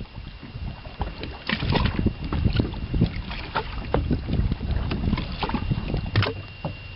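Wind buffeting the microphone and water slapping a small fishing boat's hull, with irregular knocks and clicks throughout.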